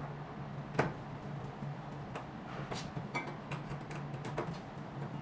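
Light clicks and taps of a steel holding bracket being fitted against the plastic side casing of a roller slimming machine: one sharp click about a second in, then a run of lighter clicks in the second half. A steady low hum runs underneath.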